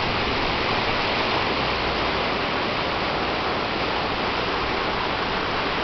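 Steady rushing noise of the passenger ship M/S Puijo under way, water and wind along the hull, with a low drone underneath that grows stronger about a second and a half in.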